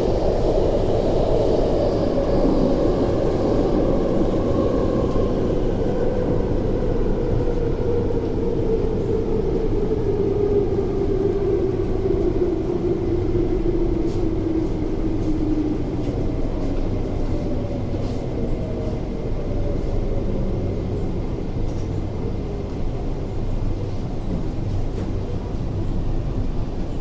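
Interior of an MTR IKK-train (SP1900) electric multiple unit slowing into a station: over a steady running rumble, the motor whine falls gradually in pitch through the first fifteen seconds or so, then fades as the train nears a stop.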